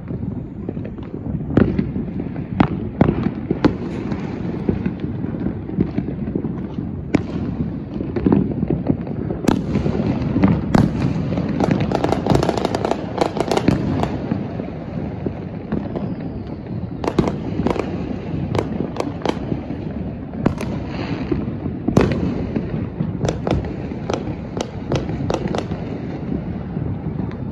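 Many fireworks going off across a neighbourhood: a steady rumble of distant bangs with sharp, nearer pops and crackles scattered throughout, busiest about halfway through.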